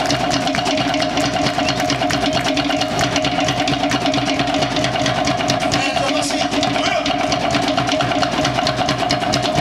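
Fast, even drumming at many beats a second, with a steady hum beneath it, played as music for a fire knife dance.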